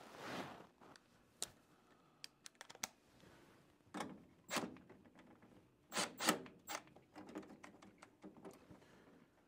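Hands handling furnace parts: scattered small clicks and a few louder knocks as a rubber drain hose and fittings on the furnace's collector box are moved about.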